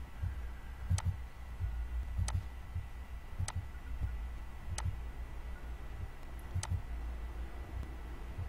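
Six short, sharp clicks about a second or so apart, over a steady low rumble.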